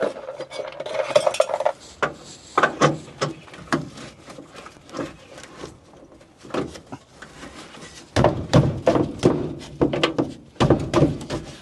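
Metallic clicks, clinks and rattles from an old car door's window crank and regulator being worked to force a stiff window down. A steady squeak runs for the first second or two, then gives way to irregular knocks, which are loudest near the end.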